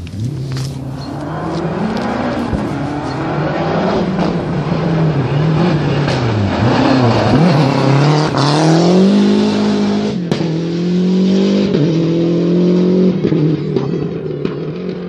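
Rally car engine at high revs, its pitch dropping and climbing again through gear changes as it approaches, loudest as it passes close by about eight seconds in with the revs climbing hard, then holding as it goes on. A sharp crack about ten seconds in.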